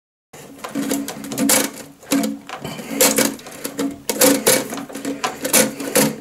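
Plastic toilet cistern fittings being worked by hand, making a string of irregular clicks and creaking, squeaky scrapes.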